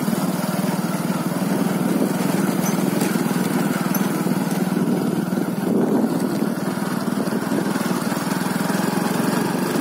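A small vehicle engine running steadily, with a rapid even pulse, as the vehicle travels along.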